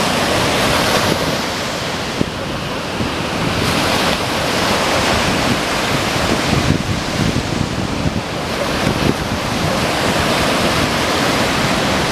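Ocean surf rushing onto the beach, with wind buffeting the microphone in low rumbles. The rush eases a little about two seconds in and builds again.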